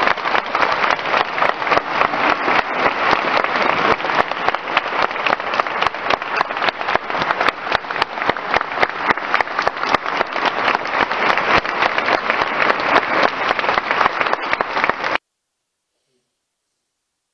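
Audience applauding, a dense patter of many hands clapping that cuts off abruptly about fifteen seconds in.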